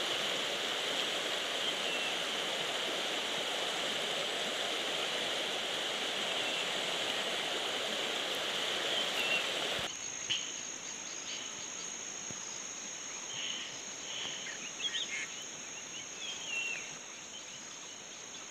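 Shallow river rushing over a rocky bed. About ten seconds in it gives way abruptly to a steady high-pitched insect drone, with scattered short chirps.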